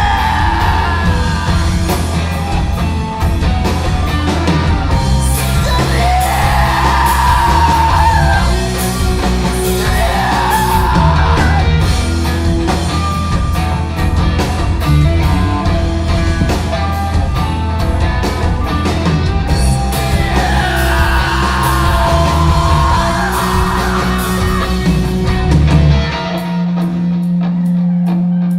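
Live rock band playing loud: drums, bass and electric guitar, with sliding wordless vocal lines over the top several times. About 26 seconds in the band stops, leaving a single low note held.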